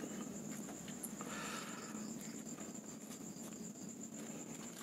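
Faint soft handling of fried crickets as they are pressed by hand onto a slice of sauced bread, over a steady high-pitched trill throughout.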